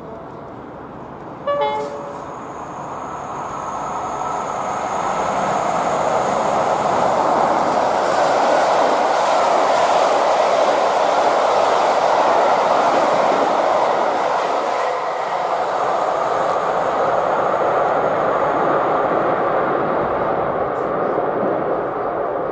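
Class 86 electric locomotive 86259 sounds a short two-tone horn about a second and a half in, a higher note then a lower one. It then passes at speed with its train of coaches: a rushing rumble of wheels on rail that builds, holds for several seconds and slowly fades as the train runs away.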